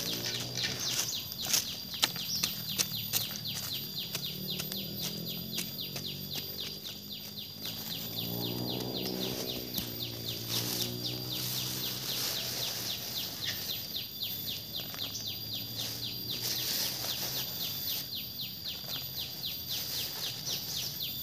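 Insects chirping in a rapid, even pulse over a steady high drone, with birds calling now and then. A fainter low tone wavers up and down underneath.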